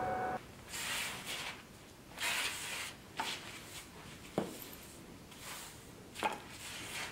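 A steady ringing tone cuts off within the first half second. After it, a gloved hand and a tool scrape and rustle through a heap of loose grey powder with a buried blade in it, with a few sharp clicks.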